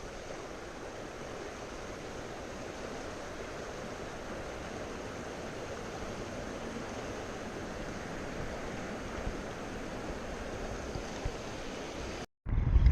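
Steady rushing of flowing river water, an even hiss with no break until a brief dropout to silence near the end.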